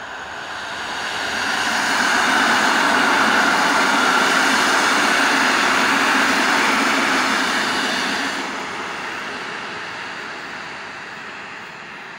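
Electric multiple unit passenger train passing on a nearby track, its wheels running on the rails. The noise swells over the first two seconds, stays loud for about six seconds, then fades as the train moves away.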